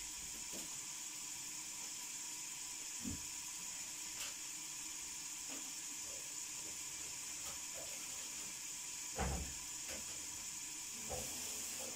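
Quiet room tone with a steady hiss, broken by a few faint knocks and clatters from household handling, the loudest about nine seconds in.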